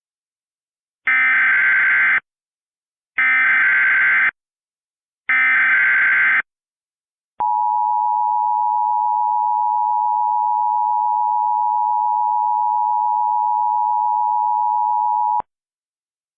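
Emergency Alert System SAME header: three bursts of digital data tones, about a second each, followed by the EAS two-tone attention signal held steady for about eight seconds, which announces a new alert before its voice message.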